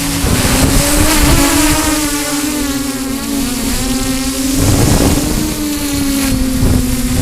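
Remote-controlled drone's propellers and motors humming at a steady pitch that wavers slightly as they work against a strong wind, with wind rumbling on the microphone.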